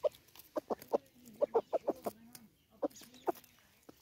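Black Cochin chickens clucking in short runs of quick notes, four or five runs with pauses between them.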